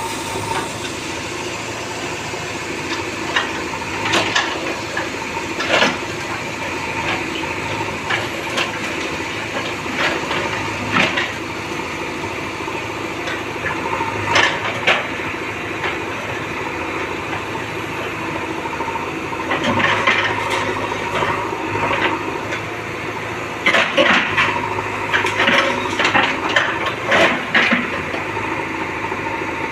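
JCB backhoe loader's diesel engine running steadily, with scattered clattering knocks and crashes from demolishing masonry, thickest near the end.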